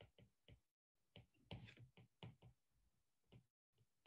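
Faint, irregular taps and clicks of a stylus tip on a tablet's glass screen while words are handwritten.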